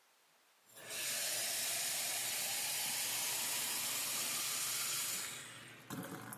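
Kitchen faucet running water into a stainless steel sink: a steady rush that eases off after about four seconds, followed by a few light knocks.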